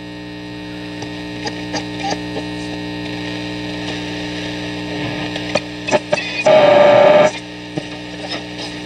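Shortwave static and hiss from a 1950 Philips BX200U valve radio as it is tuned between stations, over a steady hum, with scattered crackles. About six and a half seconds in, a loud burst of noise with a steady whistle tone lasts under a second as a signal is tuned across.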